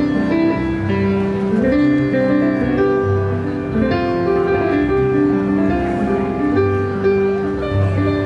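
Electronic keyboard played by a street musician and amplified through a loudspeaker on a stand: a melody over held chords and a bass line.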